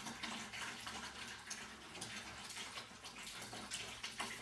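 Chemical drain-cleaner gel and water faintly trickling and sloshing through a PVC drain trap as a magnetic plunger stirs it into a hard food clog, a sign that a small channel is opening through the clog.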